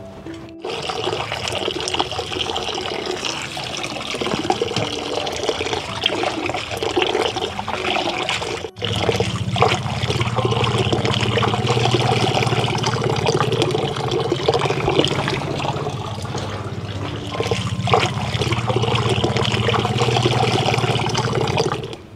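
Water running in a stream onto a bunch of green onions and splashing into a basin as they are rinsed, with a brief break about nine seconds in.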